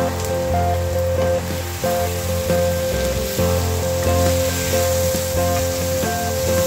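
Diced tomatoes, green pepper and liver sizzling in a hot pan while being stirred with a wooden spoon, under background music.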